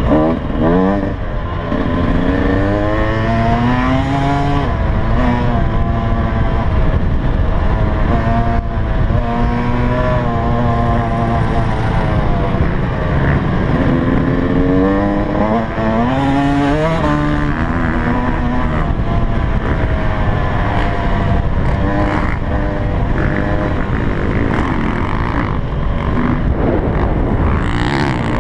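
Yamaha YZ125 two-stroke motocross engine under the rider, revving up and falling back in repeated rising sweeps as the throttle is worked. It settles to a lower, steadier run over roughly the last third.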